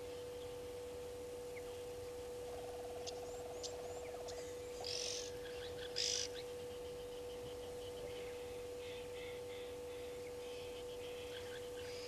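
Brown-headed parrots calling: two harsh screeches near the middle, the second the loudest, among scattered short chirps. A steady hum runs underneath.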